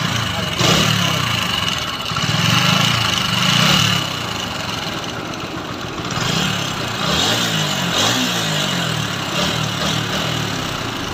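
TVS Apache RTR 160 4V's single-cylinder four-valve engine running and being revved several times, rising and falling back each time. It makes the bad engine sound that the mechanic traces to loose intake valve clearance.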